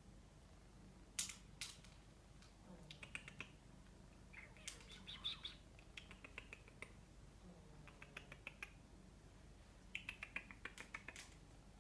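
Faint clusters of quick clicking, kissy squeaks, several bursts a couple of seconds apart, the kind of lip-smacking or tongue-clicking a person makes to call a cat's attention.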